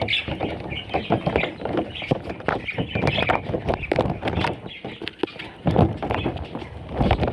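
Rapid, irregular tapping and knocking, with a few budgie chirps.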